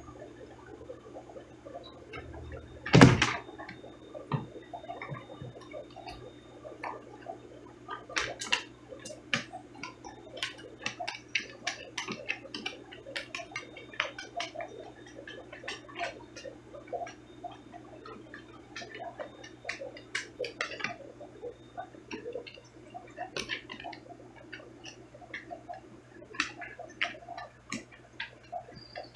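Aquarium sounds: a steady low hum with many small irregular clicks and ticks, and one louder knock about three seconds in.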